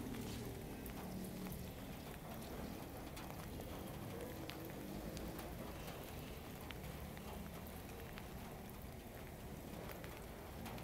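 Steady patter of rain, with scattered small clicks.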